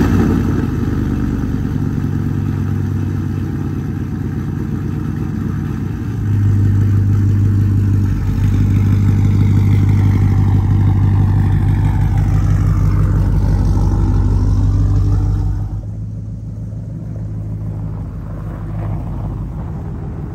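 A 2006 GMC Sierra's 5.3-litre V8, fitted with long-tube headers, just started and running with a loud exhaust. The engine gets louder from about six seconds in and drops to a quieter, more distant sound after about sixteen seconds.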